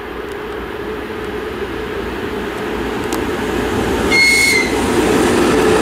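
VL11.8 two-section electric locomotive hauling a container freight train, approaching and passing close: a steady rumble of the locomotive and wheels on the rails that grows louder as it nears, with a brief high-pitched tone about four seconds in.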